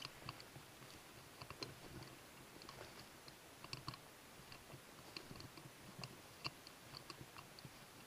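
Faint, irregular small clicks and ticks, dozens of them, each ringing briefly at the same few high pitches. Underneath is a soft rustle, like footsteps in dry leaf litter.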